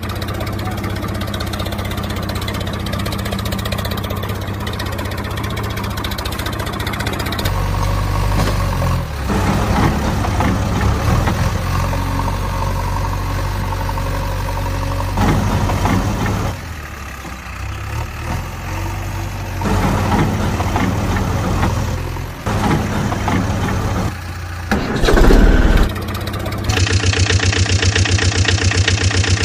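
Engine sounds, idling and revving in several stretches that change abruptly, with a loud burst shortly before the end. Near the end a different engine idles with a quick even beat.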